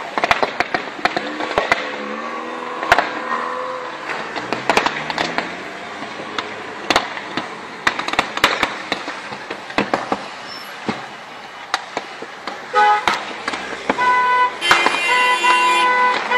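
Road traffic heard from inside a moving car, with many sharp cracks and pops throughout. A car horn honks repeatedly over the last few seconds.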